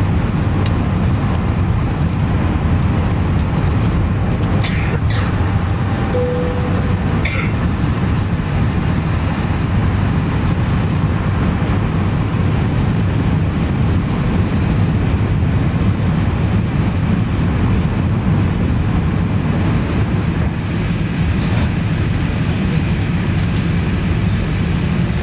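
Steady cabin noise inside a climbing Airbus A380: a deep, even rumble of the engines and rushing air. A few brief clicks come about five and seven seconds in.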